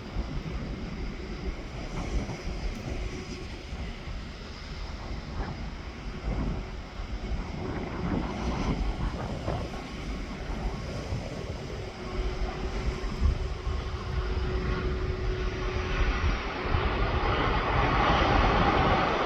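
Wind buffeting the microphone, with an aircraft's engines growing steadily louder over the last few seconds as it comes closer.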